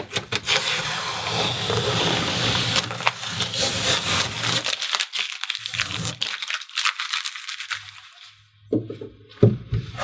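Masking tape being peeled off an acrylic bathtub deck and crumpled in the hand, crackling and tearing for the first half. Softer rubbing follows, then a couple of sharp knocks near the end.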